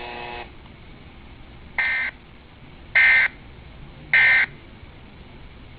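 Emergency Alert System end-of-message signal: three short bursts of buzzy digital data tones, about a second apart, that mark the end of the alert broadcast.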